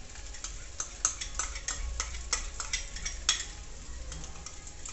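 Egg white being poured over rice in a hot frying pan, crackling with irregular sharp pops that are loudest about a second in and again just past three seconds. A low steady hum from the portable gas stove's burner runs underneath.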